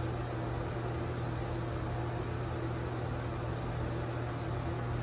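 Bathroom exhaust fan running with a steady low hum over an even hiss.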